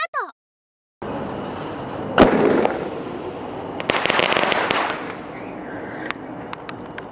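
Consumer aerial firework (bouquet-type shell with crackling stars). A single sharp bang comes about two seconds in. About four seconds in there is a second of dense crackling, which tapers off into scattered pops.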